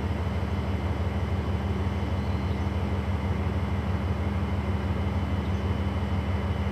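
An engine running steadily with a low, even drone that does not rise or fall.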